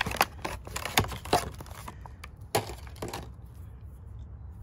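Stiff clear plastic blister packaging crackling and snapping as a hitch receiver lock pin is pried out of it: a quick run of sharp cracks and clicks for about three seconds, then it goes quieter.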